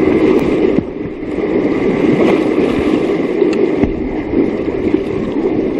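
Whitewater rapid rushing loudly around a kayak as it runs the rapid, with a few light knocks.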